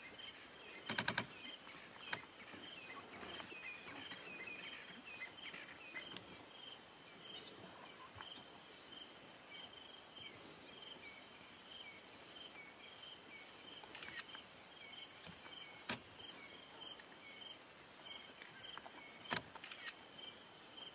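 Steady, high-pitched chorus of crickets and other night insects, with small repeated chirps over it. A quick run of sharp clicks comes about a second in, and single sharp clicks follow later.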